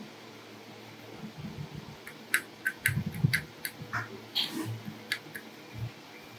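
A run of small sharp clicks, starting about two seconds in, as a screwdriver tightens the screw terminal of an L298N motor driver board onto a motor wire held in tweezers, with soft bumps of hands and tools against the board.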